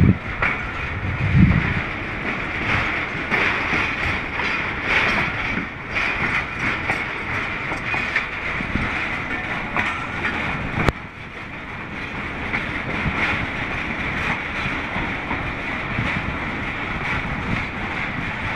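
A Pakistan Railways passenger train rolls slowly out of a station, with steady running noise and wheels clattering over the rail joints. A sharp click about eleven seconds in is followed by a brief drop in level.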